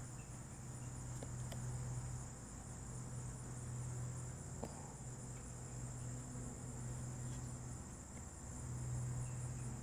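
Crickets chirping steadily in the background, a continuous high pulsing trill, over a low steady hum, with a few faint clicks.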